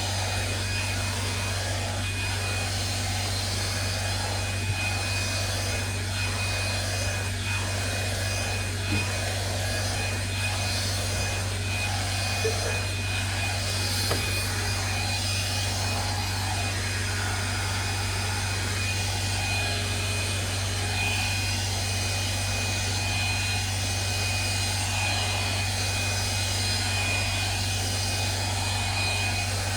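Hair dryer running steadily: a constant motor hum and rush of air with a thin, steady high whine.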